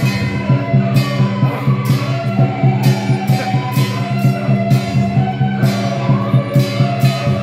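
Loud music with a steady beat: a sustained low melody over sharp, cymbal-like hits several times a second.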